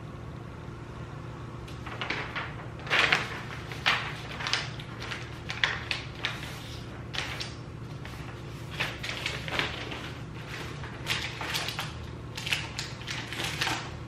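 Sheets of paper rustling and crackling in short bursts as the pages of assembly instructions are handled and turned, over a steady low hum.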